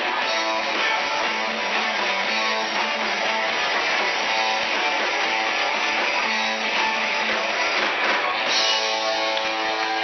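Live band playing, with guitar prominent, picked up loud by a small camera's microphone.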